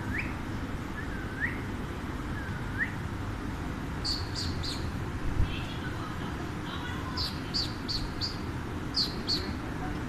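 Alexandrine parakeets calling: three soft swooping whistles in the first three seconds, then short, sharp high chirps in quick clusters of three or four. A steady low rumble runs underneath.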